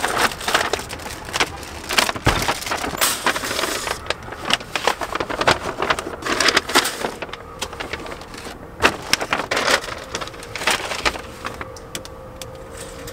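Paper grocery bags rustling and crinkling as they are lifted from a shopping cart and set down in a car's cargo area, with irregular knocks and thuds throughout.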